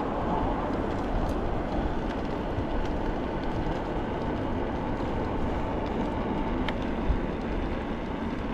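Steady wind and road rumble from riding an electric bike, with a faint steady hum and a few light clicks.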